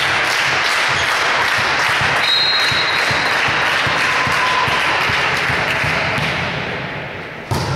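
Loud, steady din of voices and clapping in a volleyball hall, easing off towards the end. A single sharp smack near the end as the volleyball is served.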